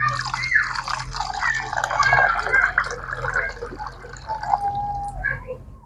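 Water being poured, splashing and trickling into a container.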